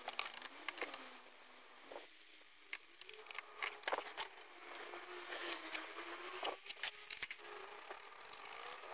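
Light clicks of a steel ruler being set down and shifted on a small wooden block, and a mechanical pencil scratching on the wood. About halfway through, the pencil scratches back and forth quickly, hatching between the drawn lines.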